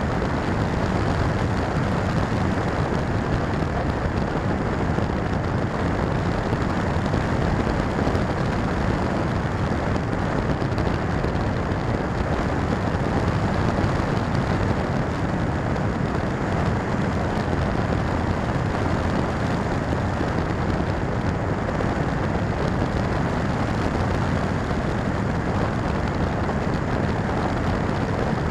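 Steady, even rush of airflow over the onboard camera of a Firstar 2000 V2 FPV glider in flight.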